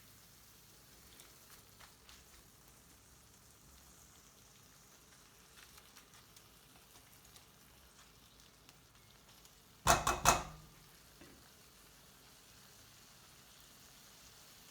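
Spice and tomato masala frying faintly in a pan, a soft sizzle with small ticks of stirring. About ten seconds in come two sharp, loud knocks in quick succession.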